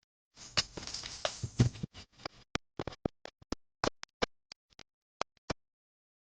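Hot oil sizzling in a pan for a second or two with sharp pops, then single pops at irregular, growing intervals. This is typical of tempering in a sundal recipe, with seeds spluttering as they hit the hot oil.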